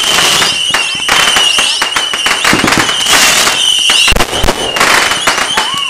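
Aerial fireworks going off in quick succession: a dense run of crackling pops with whistles, and a deeper boom about four seconds in.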